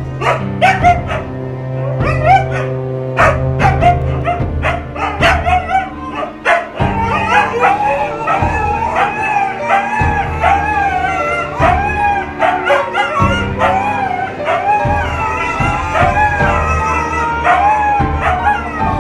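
Huskies howling and yowling in long wavering calls over music with a steady bass line.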